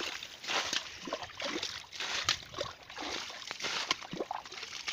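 Shallow muddy pond water sloshing and splashing in irregular bursts, as feet wade through the mud and water of a drained pond.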